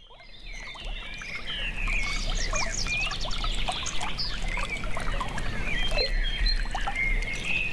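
Birds chirping and calling, many short quick notes overlapping, fading in over the first couple of seconds, over a faint low hum.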